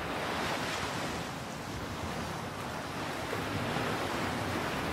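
Steady rush of wind and sea waves.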